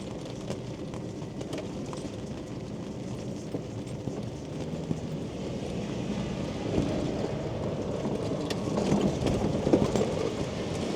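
Quingo Toura Mk2 electric mobility scooter travelling, with its motor humming and its wheels rumbling over the pavement. The sound grows louder through the second half, with a few sharp knocks near the end.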